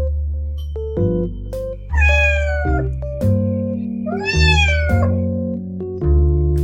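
Two drawn-out cat meows, the first falling in pitch and the second rising then falling, over background keyboard music.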